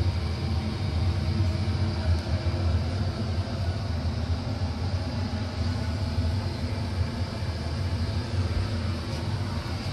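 Steam launch's fired boiler and steam plant running: a steady low rumble with a hiss over it.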